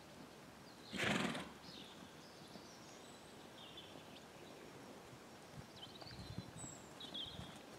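A ridden horse snorts once, a short breathy blow about a second in. Faint hoofbeats thud on the sand arena near the end, with birds chirping throughout.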